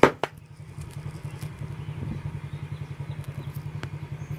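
Motorcycle engine idling with a steady, even low pulse, with one sharp knock right at the start.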